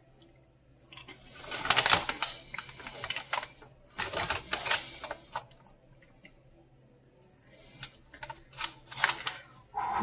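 Crunchy fried squid crisps being chewed close to the microphone, a rapid crackling crunch over several seconds, followed near the end by the crinkle of the foil snack bag being handled.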